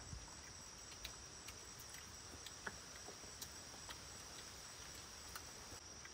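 Forest insects trilling in a steady high-pitched drone, with scattered faint ticks and taps.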